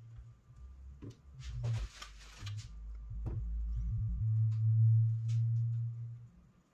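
Small metal turbocharger parts and rubber O-rings handled on a plastic parts tray, with light clicks and rustling in the first few seconds. A low steady hum comes in about four seconds in, lasts about two seconds and is the loudest thing, then stops.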